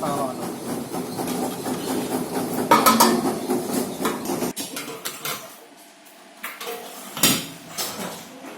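Metal parts clanking and clattering, with louder knocks about three seconds in and again a little after seven seconds.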